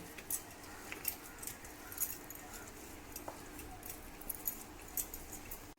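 Scattered light clicks and taps of kitchen handling over a faint steady background.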